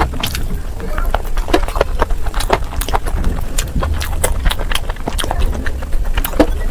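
Close-miked eating sounds: a person chewing and biting food, with many sharp, irregular wet clicks and crunches over a steady low rumble.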